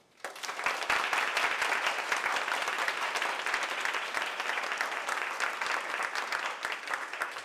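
Audience applauding, a dense stretch of many hands clapping that starts just after the beginning and thins out near the end.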